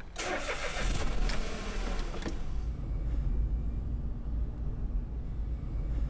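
Car engine and road noise heard from inside the cabin while driving: a rush of noise over the first two seconds, then a steady low rumble.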